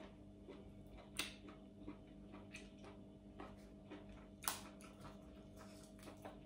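Faint, scattered clicks and small snaps as fresh herb sprigs are picked apart by hand and food is chewed, over a steady low hum. The loudest click comes about four and a half seconds in.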